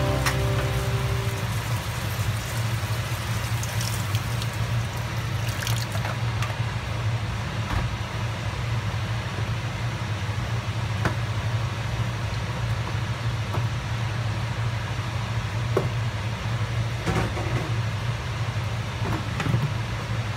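Shrimp and scallops sizzling and simmering in sauce in a wok, an even hiss with scattered small pops, over a steady low hum.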